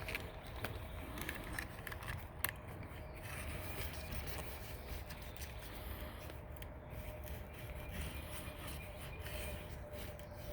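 Faint scraping and a few light clicks of hands handling rubber screen spline and screen in a door frame's spline track, over a faint steady hum.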